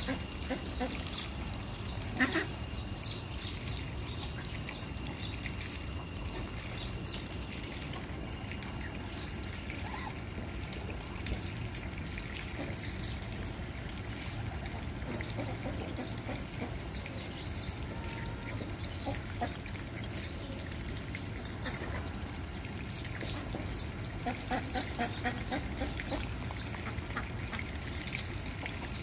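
Domestic ducklings peeping in many short high notes, with an adult duck's quick series of low quacks at the start and again around twenty-four seconds in. There is a single sharp knock about two seconds in.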